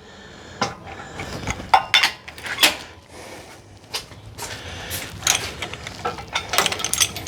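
Irregular metallic clicks and clanks from hand tools and hardware while the electric motor is settled onto its mounts.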